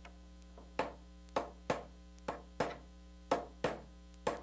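Claw hammer tapping a steel nail set to sink finish nails below the surface of a wooden drawer joint: about eight sharp taps, with a steady electrical hum underneath.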